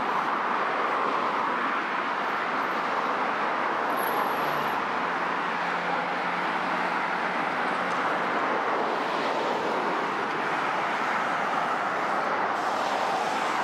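Steady road traffic noise from cars passing close by on a multi-lane road: a continuous rush of tyres and engines with no single vehicle standing out.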